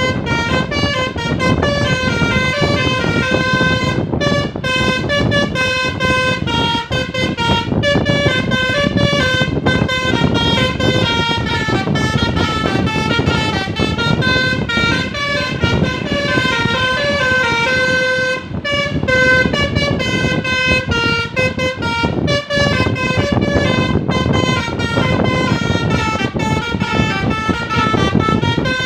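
A bus's Basuri multi-tone telolet horn playing a continuous tune of quick notes that step up and down. Engine and road noise runs underneath.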